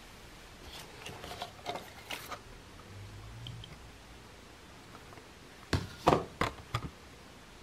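Stiff clear plastic packaging handled, crinkling in the first couple of seconds, then four or five sharp crackles in quick succession near the end, the loudest sounds.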